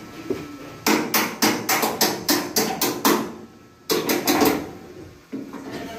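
Hammer blows on a steel panel board enclosure, metal on metal, in quick runs of about four or five strikes a second. A run of about ten strokes comes first, then a short pause, then a second run and a few lighter taps near the end.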